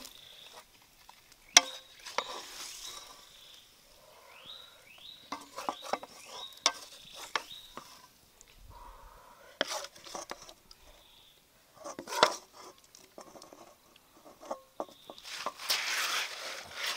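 Wooden spoon stirring pork and banana-stem stir-fry in a metal wok, with repeated knocks and scrapes against the pan. Near the end comes a denser burst of noise.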